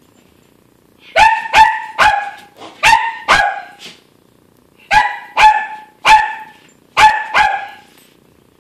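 A small dog barking loudly, ten barks in two runs of five with a pause of about a second and a half between the runs.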